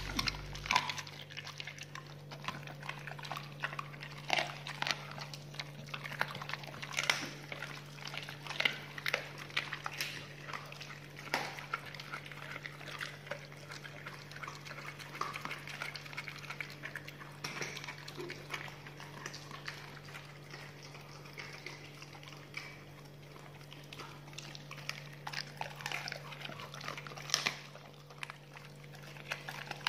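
Pit bulls chewing and crunching raw chicken pieces: irregular wet crunches and crackles, with a steady low hum underneath.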